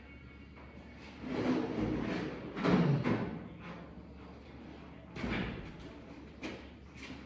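A few dull thumps and knocks: one group about a second in, another around three seconds, a single one a little past five seconds, and small clicks near the end.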